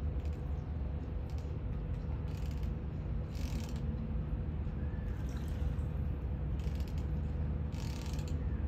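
Steady low mechanical rumble of yacht machinery running, with a faint steady hum above it and about five short hissing bursts.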